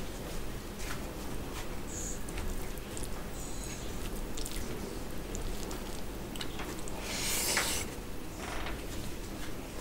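Fingers squishing and mixing basmati rice with mutton curry gravy on a plate, soft wet squelches with small clicks, and a louder brief rustle about seven seconds in.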